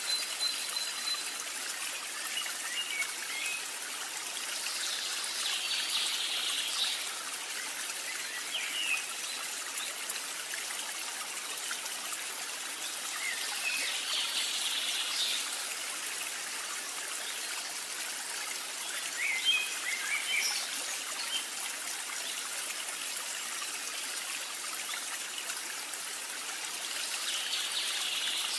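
Steady rushing of running water like a stream, with short bird chirps now and then.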